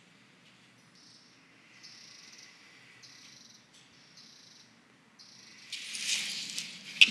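Insects chirping: short high-pitched trills about half a second long, coming roughly once a second. About six seconds in, a louder, high-pitched hiss takes over.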